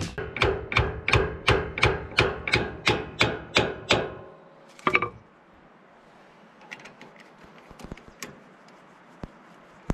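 A run of about a dozen evenly spaced knocks, about three a second, fading away over four seconds. Then a sharp double knock and a few faint clicks of parts being handled during a hydraulic cylinder repack.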